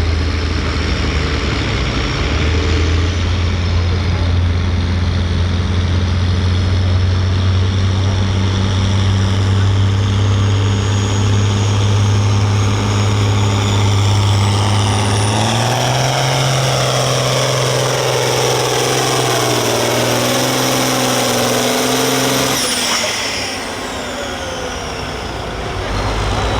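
Turbocharged diesel engine of a farm stock pulling tractor running hard under load: a steady deep drone at first. About two-thirds of the way in the engine note steps up and a high whistle climbs and holds. A few seconds before the end the throttle comes off, the whistle falls away and the engine drops back.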